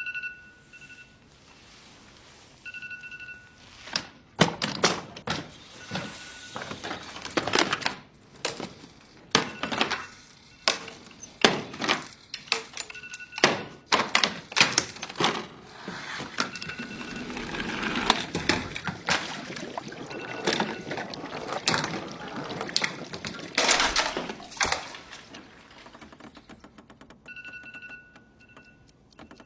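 iPhone alarm beeping in short repeated tones, drowned out by a long series of loud knocks and thuds, with brief stretches of the alarm still heard between them and again near the end.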